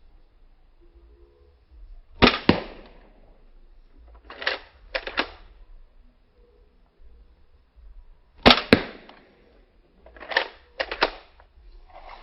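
1911 airsoft pistol firing: about eight sharp cracks, falling in four quick pairs spaced roughly two seconds apart.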